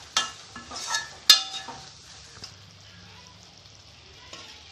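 A metal ladle stirring thick mutton chukka in a metal kadai, clinking against the pan three times in the first second and a half. The last clink is the loudest and rings briefly. After it there is a faint steady sizzle of the frying masala with an odd light tick.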